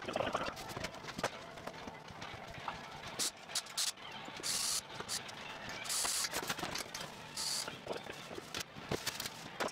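Cordless drill run in short bursts, about three times in the second half, among frequent clicks and knocks of parts being handled on a gas stovetop.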